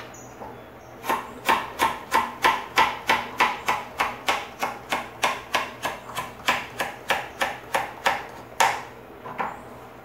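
Kitchen knife chopping pupunha heart of palm on a cutting board: a steady run of knocks about three a second, starting about a second in and stopping near the end.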